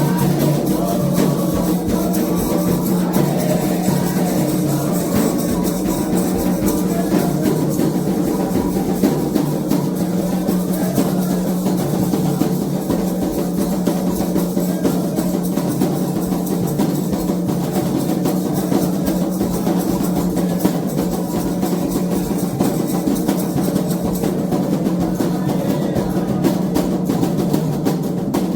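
Candomblé ritual drumming: atabaque hand drums playing a continuous fast toque rhythm, steady throughout.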